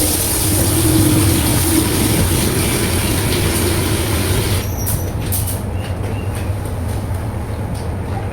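Wet vacuum cleaner running steadily, with a constant low motor hum under a loud suction hiss. The hiss changes character about five seconds in.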